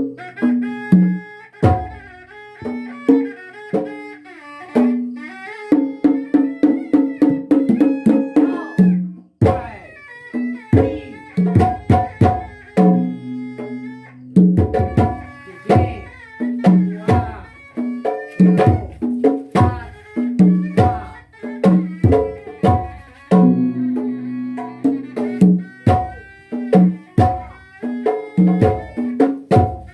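Sundanese pencak silat accompaniment music: kendang drums played in quick, busy strokes under a held, reedy wind melody, with a run of rapid even drum hits a few seconds in.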